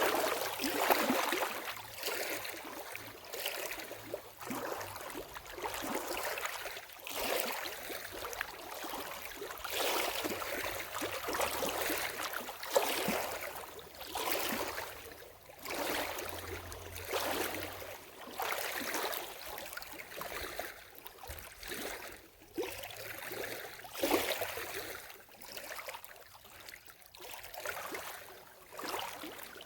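Lake water lapping at the shore in small, irregular splashing washes, one every second or two.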